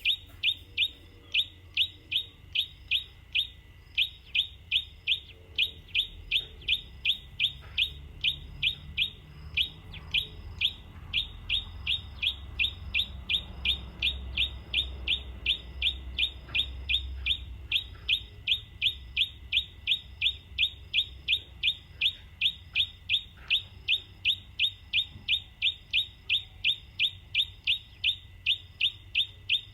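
A bird chirping over and over, a short high falling note about three times a second, very evenly. A faint low rumble rises and falls in the middle.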